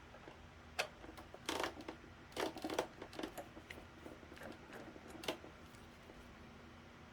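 Small plastic and metal parts of an electric fan handled during repair: scattered light clicks and rattles, the loudest clusters in the first three seconds and about five seconds in, over a faint steady hum.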